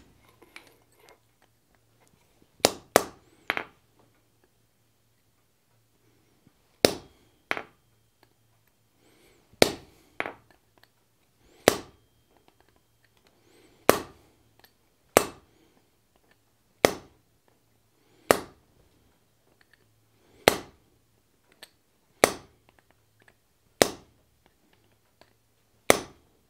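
Hand hammer striking a small rounded punch into a red-hot 4140 steel die block on the anvil, sinking little dimples. Sharp metallic blows with a short ring come every second or two, about sixteen in all, some in quick pairs.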